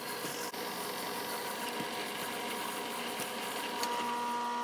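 Bridgeport milling machine running, its spindle driving a drill into an aluminium bar: a steady motor hum and whine with a constant cutting hiss. The tone shifts slightly near the end.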